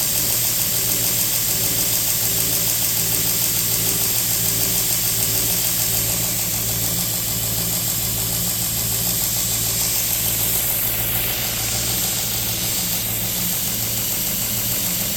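3x79 belt grinder running steadily at speed in reverse: an even motor hum with a constant belt hiss and a faint regular pulse.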